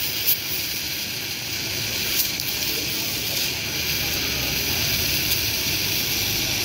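Welding arc on aluminium giving a steady hiss with a few faint pops.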